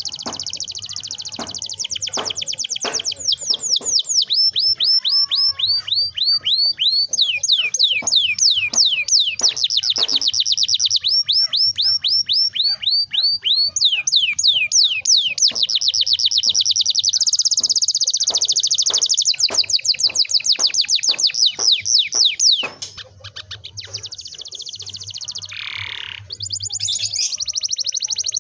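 Domestic canary singing long rolling trills, rapid runs of repeated high sweeping notes that switch from one roll to the next without pause. About three-quarters of the way through, the song drops in level and changes to slower, more varied phrases.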